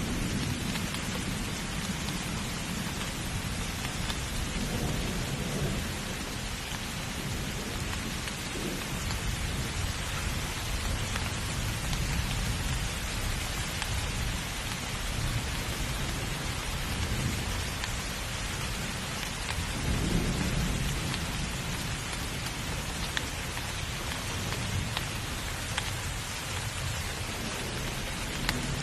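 Steady heavy rain with low rolling thunder rumbling underneath, the thunder swelling loudest about twenty seconds in.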